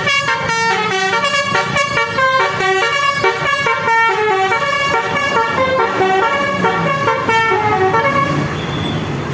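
Basuri 'telolet' multi-tone bus air horn playing a fast melody of quickly changing notes, stopping near the end.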